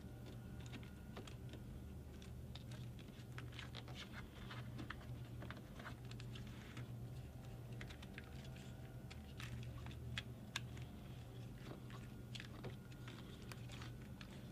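Faint irregular small clicks and rattles of plastic wiring connectors and wires being handled, over a steady low hum.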